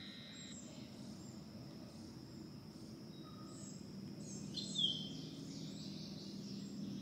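Swamp ambience: scattered faint bird chirps over a steady high insect drone, with one sharp falling bird chirp a little before five seconds in.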